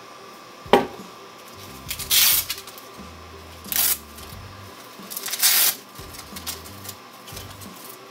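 Flight battery being mounted by hand on an octocopter frame: a sharp knock under a second in, then three short rasping noises, the longest about five seconds in.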